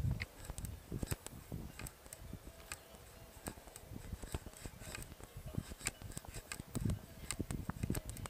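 Low rumbling gusts of wind on the microphone, about a second in and again near the end, with many scattered small clicks and rustles in between.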